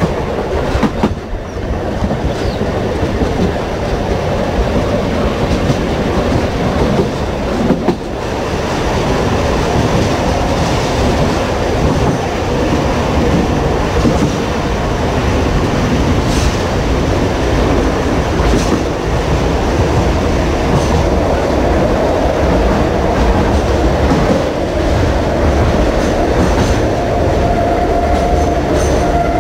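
A train running on rails: a steady rumble with occasional clicks from the wheels. A thin, steady high tone comes in near the end.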